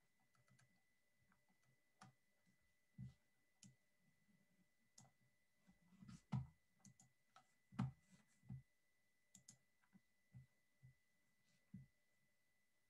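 Near silence: faint scattered clicks and soft knocks over a faint steady high tone.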